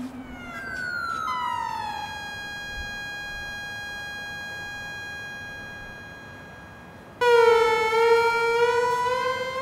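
Synthesizer drone played through loudspeakers: sustained electronic tones that glide down in pitch about a second in, hold steady and slowly fade, then a much louder new tone comes in a little after seven seconds and slowly rises in pitch.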